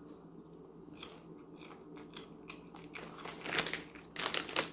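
A mouthful of white cheddar popcorn being chewed, with faint soft crunches. Louder crinkling comes twice near the end, as the plastic snack bag is handled.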